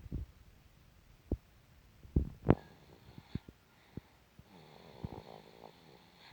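A baby snoring: one drawn-out snore begins about four and a half seconds in. Before it come several short knocks and taps, the loudest two a little after two seconds.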